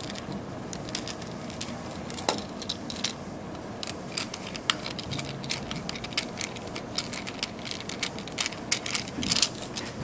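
Small irregular metallic clicks and light rattling from a screwdriver backing tiny screws out of a laptop hard drive's metal mounting bracket, and from the loose screws being handled.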